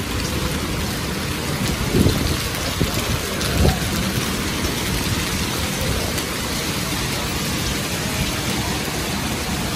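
Heavy rain pouring steadily onto wet paving stones, with small hailstones among it. Two short, low thumps stand out, about two seconds and three and a half seconds in.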